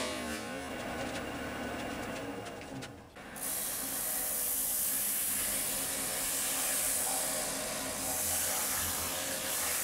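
Wood lathe running with a bowl of unha-de-boi wood and resin spinning on it. For about three seconds a hand-held tool rubs against the turning piece. After a brief drop, a steady, even hiss of rubbing on the spinning surface runs over the lathe's faint hum.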